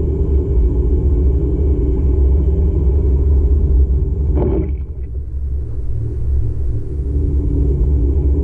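Car engine and road noise heard from inside the cabin while driving: a steady low rumble that gets a little quieter from about five seconds in.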